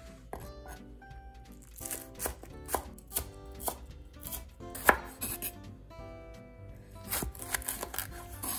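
Chef's knife chopping green onions on a wooden cutting board: a run of uneven knife strikes against the wood, with the loudest knock about five seconds in.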